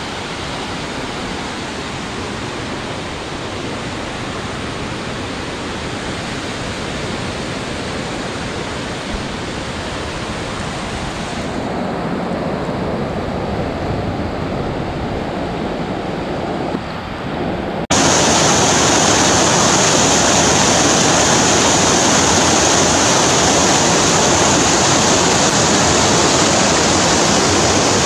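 Rain-swollen stream rushing over rocky rapids: a steady, loud rush of water. About two-thirds of the way through it cuts suddenly to a louder, brighter recording of the rapids.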